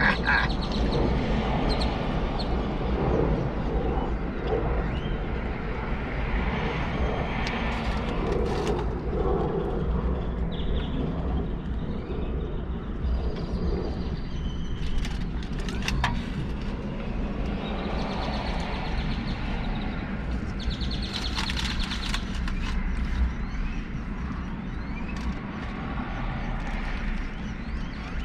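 Steady rumble of road traffic going by, with birds chirping now and then and a few short clicks and rustles.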